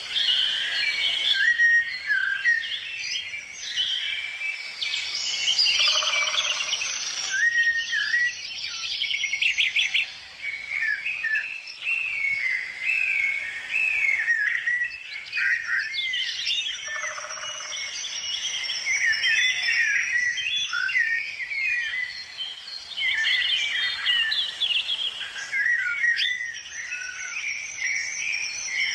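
Birds chirping and singing, many quick high notes and short gliding phrases overlapping without a break.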